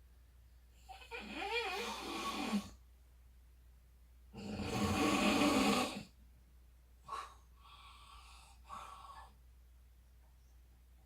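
A person snoring heavily in a series of separate snores. One with a wavering, rattling pitch comes about a second in, a louder and longer one about four seconds in, and two or three weaker, shorter ones follow.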